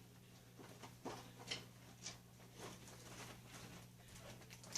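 Faint scattered clicks and light taps of small items being picked up and handled, over a low steady hum.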